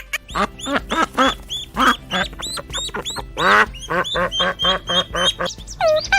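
Animal calls: a fast run of short, repeated calls, several a second.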